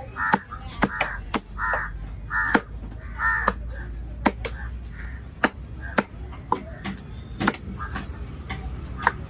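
A heavy knife chopping a fish into steaks on a wooden stump block, giving sharp knocks about every half second. Crows caw repeatedly alongside, mostly in the first few seconds.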